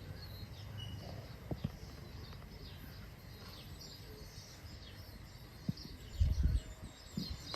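Birds chirping over a steady low background rumble, with a few soft clicks and a cluster of louder low thumps about six seconds in.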